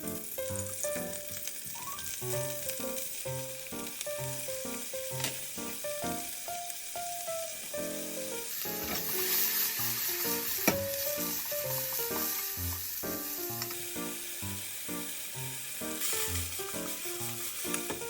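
Food sizzling in oil in a frying pan, with occasional stirring; the sizzle grows louder about halfway through for several seconds. Light background music plays over it.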